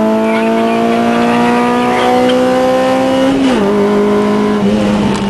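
Honda Civic EP3 Type R's 2.0-litre four-cylinder VTEC engine, fitted with aftermarket headers, exhaust and intake, pulling hard at full throttle, heard from inside the cabin. Its pitch climbs slowly through the revs until an upshift drops it about three and a half seconds in, and then it pulls again.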